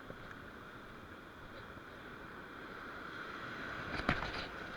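Steady wash of sea and wind at the shore, with a brief clatter of clicks about four seconds in.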